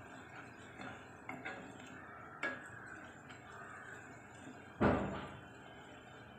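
Wooden spatula stirring onions frying in oil in an aluminium pressure cooker, knocking and scraping against the pot over a steady low sizzle, with a louder knock about five seconds in.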